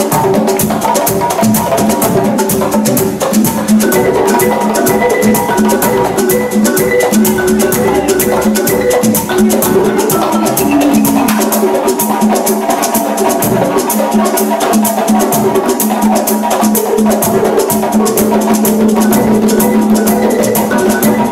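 Live band music with hand-played conga drums, loud and steady, with a fast continuous rattle on top and held pitched notes underneath.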